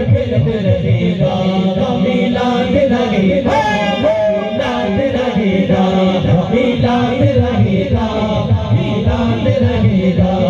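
Several men's voices singing a naat together as a chant into microphones, amplified through loudspeakers.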